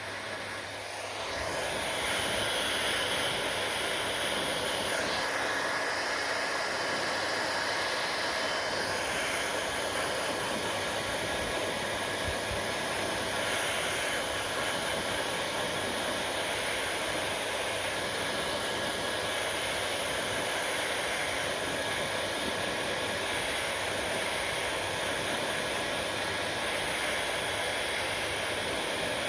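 Hair dryer running steadily: a rushing hiss of blown air with a faint whine. It gets louder about a second and a half in, then holds steady.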